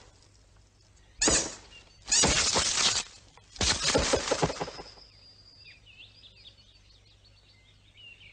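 Three loud bursts of crashing, breaking noise, short then longer, each full of crackle. After them come faint bird chirps and twitters.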